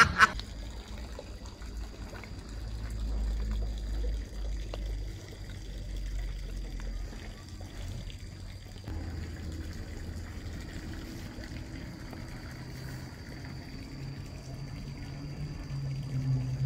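Water trickling at the edge of a pond, over a low rumble and a faint steady high tone.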